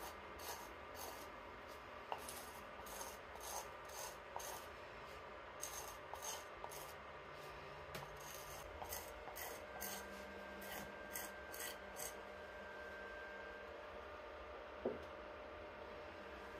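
Quick rasping strokes of a hand cleaning up the bottom of a small unfired clay cup, about two to three strokes a second, stopping about two-thirds of the way through. A single knock near the end.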